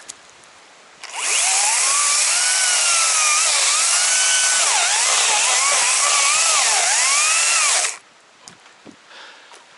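Chainsaw cutting into a thick fallen tree trunk: it revs up about a second in and runs loud for about seven seconds, its pitch sagging and recovering as the chain bites into the wood, then cuts off suddenly.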